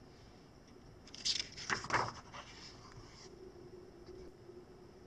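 A picture book's page being turned: a few short papery rustles between about one and two and a half seconds in.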